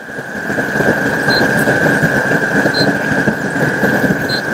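Factory machinery running with a steady high-pitched whine over a dense mechanical noise that builds up in the first second. A short, high beep sounds about every second and a half.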